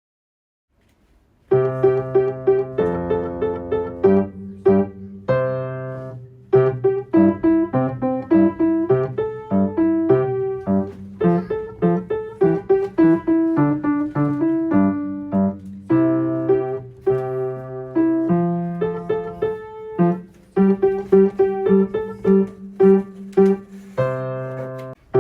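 Solo piano playing a simple children's-song accompaniment: a melody over a plain bass of single low notes. It starts from silence about a second and a half in.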